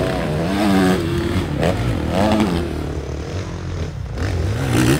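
Supermoto race motorcycles running on the track, engine pitch rising and falling as they rev through the corners, with a steady low engine rumble underneath.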